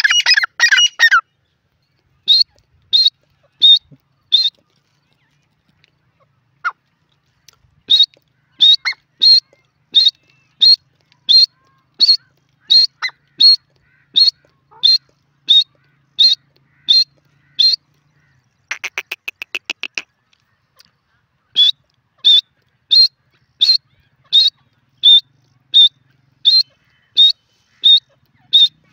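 Grey francolin calling. A fast harsh chatter ends about a second in. Then comes a long run of short, sharp, high notes at about one and a half a second, with a brief fast rattle about two-thirds of the way through before the notes resume.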